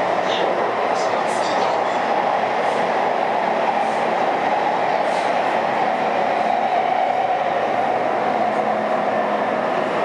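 Cabin noise of a Taipei Metro C301 train, a car fitted with a retrofitted propulsion system, running through a tunnel. The steady rumble of the wheels on the rails carries a constant mid-pitched hum, and a few faint ticks sound over it.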